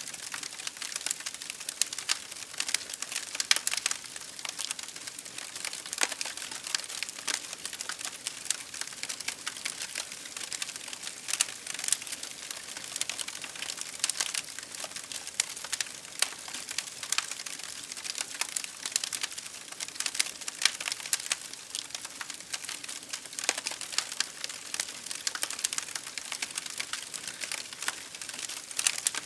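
Campfire wood crackling: irregular sharp pops and snaps over a steady hiss.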